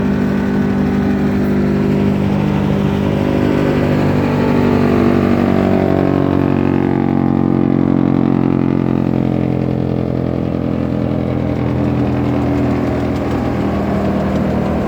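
Wood chipper machine running steadily with a continuous engine-like drone, its pitch shifting slightly around the middle.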